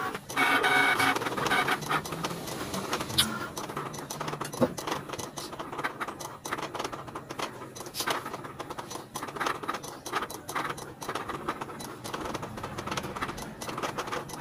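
Cricut Explore Air 2 cutting machine running a test cut: its motors whir in short stop-start moves as the blade carriage and mat shift back and forth, with rapid clicking throughout.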